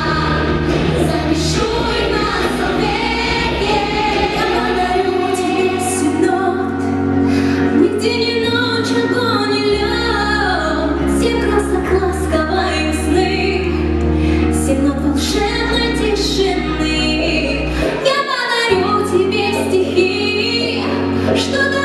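A song performed by singing voices over a backing track, with a bass line that changes note every few seconds and regular drum hits.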